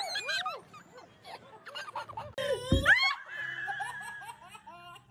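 A young child laughing and squealing, with a loud rising cry about two and a half seconds in followed by a high squeal held for about a second.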